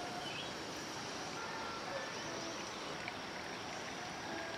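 Steady outdoor background ambience: an even hiss with a few faint short chirps.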